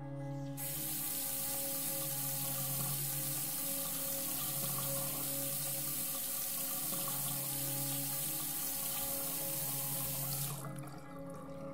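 Bathroom sink faucet turned on, water running steadily into the basin, then shut off suddenly near the end. A low, sustained music drone continues underneath.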